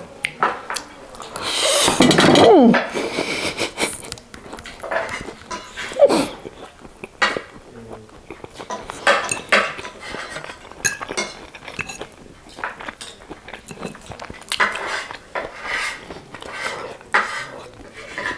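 Close-miked eating of spaghetti: a steel fork clicking and scraping on a ceramic plate as it twirls the noodles, with chewing between bites. A loud slurp of noodles comes about two seconds in.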